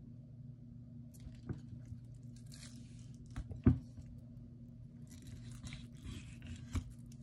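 Deba knife cutting and scraping through a black sea bream's flesh and backbone cartilage behind the head, with crunching and a few sharp knocks of knife and fish on the wooden cutting board, the loudest just under four seconds in. A low steady hum runs underneath.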